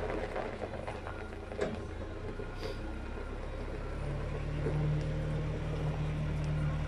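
Tractor engine running steadily, with a single knock about a second and a half in and a higher engine note joining about four seconds in.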